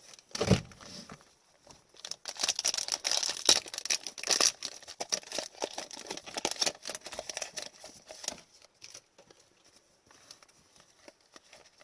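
A foil hockey card pack being torn open and its wrapper crinkled, with a dense crackly rustle from about two seconds in that dies down at about eight seconds. A single thump comes just after the start.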